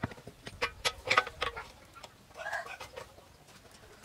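Sharp metal clicks and taps as a small steel plate and a screw clamp are set on a steel lathe bed: several in the first second and a half, then quieter.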